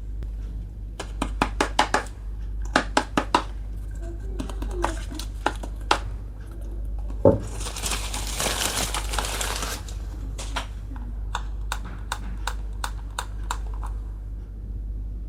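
Small plastic toy kitchen pieces clicking and tapping against each other as they are handled, in quick clusters of sharp clicks, with a thump about seven seconds in and a few seconds of plastic packaging crinkling after it. A steady low hum sits underneath.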